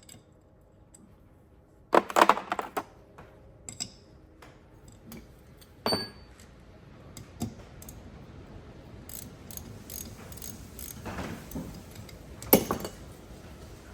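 Small metal carburetor parts and hand tools clinking and clattering as they are handled, with a cluster of sharp clatters about two seconds in and another near the end.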